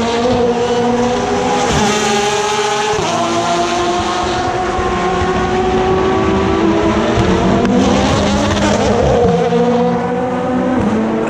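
Endurance race cars' engines at a tight corner, several at once: the pitch drops in steps as they brake and downshift, then rises as a car accelerates away about eight seconds in.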